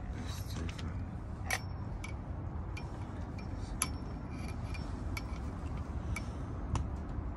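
Irregular metallic clinks and clicks, about eight, some with a short ring, from the metal parts and hand tool of a Kawasaki ZX6R front fork being taken apart. A steady low rumble runs underneath.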